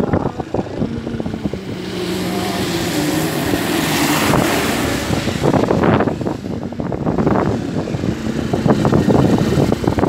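Vehicle driving along a road, wind buffeting the microphone over engine and road noise, with a stretch of louder hiss about two seconds in that eases off after five seconds.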